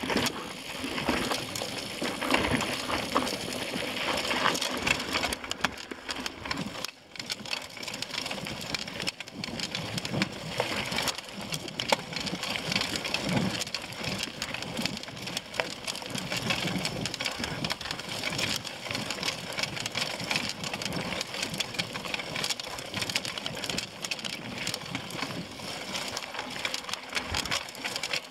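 Mountain bike ridden over rocky dirt singletrack: the tyres crunch over gravel and stones, and the bike clatters and rattles over the bumps in an uneven stream of small knocks.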